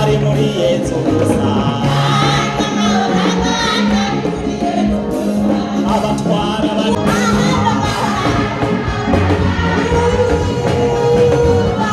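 A group of voices singing an upbeat gospel song in chorus over instrumental accompaniment, with a steady bass line moving under the voices.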